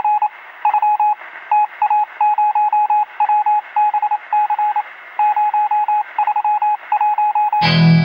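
Morse-code-style beeping over radio hiss: a single steady tone keyed on and off in short and long pulses. Near the end it cuts off as guitar music comes in.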